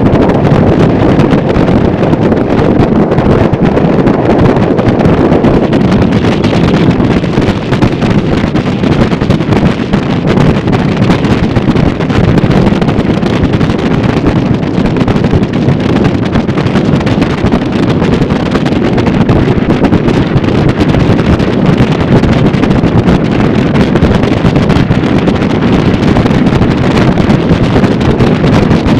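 Loud, steady wind buffeting the microphone on an open motorboat running at about 40 mph, with the boat's running noise mixed in beneath it.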